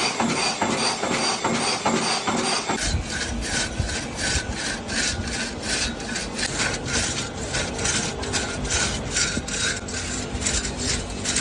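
Rhythmic back-and-forth scraping of a tool working wood, even strokes at about four a second that slow to about three a second a quarter of the way in, each stroke carrying a slight ring.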